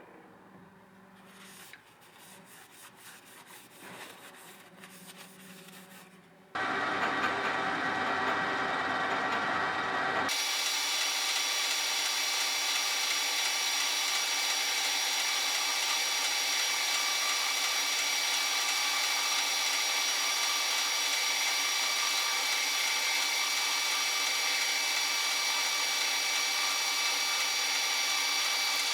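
Metal lathe turning a shallow 1-degree taper on a handle shaft under its taper attachment. It starts sharply about six and a half seconds in as a loud, steady whine with many fixed tones over a hiss of cutting, and about ten seconds in it loses its low rumble and carries on at an even level.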